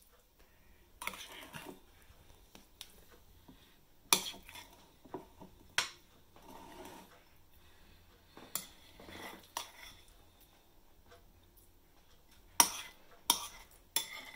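Metal spoon scraping mashed swede from a ceramic bowl and knocking it off onto a glass baking dish: soft scrapes broken by several sharp clinks, the two loudest close together near the end.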